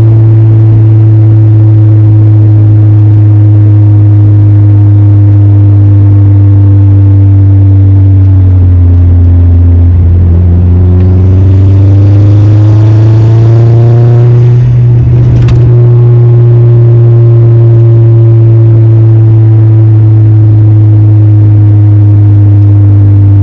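Car engine running steadily while driving. About nine seconds in its pitch dips, then rises for a few seconds as it accelerates, and a sharp click comes around fifteen seconds in before it settles back to a steady run.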